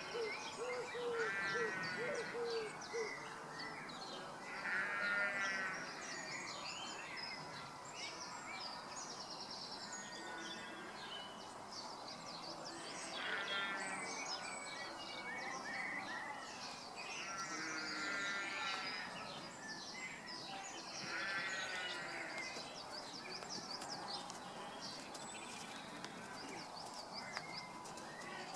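Several birds singing and chirping. One bird repeats a short trilled phrase every few seconds, and a low series of hoots sounds in the first few seconds.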